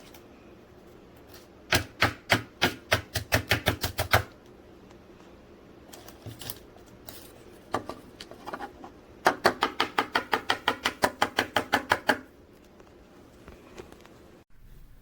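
Two runs of rapid, sharp knocks, about five to six a second, each lasting two to three seconds, with a few scattered knocks between them.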